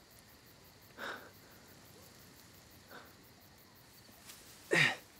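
A man's pained, strained breathing: a gasp about a second in, a fainter one around three seconds, then a louder groan that falls in pitch near the end.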